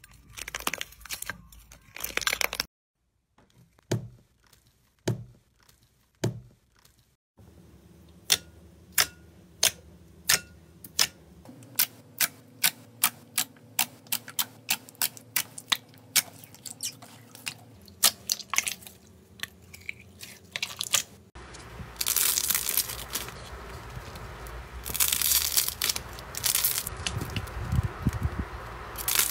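Hands playing with slime. First comes crunchy crackling as a sprinkle-topped slime is broken open. Then a run of sharp pops, about twice a second, as clear green jelly slime full of air pockets is pressed, and from about three-quarters of the way in, dense crinkling and crunching as a clay-coated slime is squeezed.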